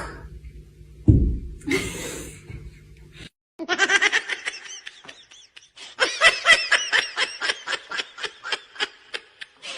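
A thump about a second in, then, after a short gap, a person laughing hard in a long run of short pulses, about four a second.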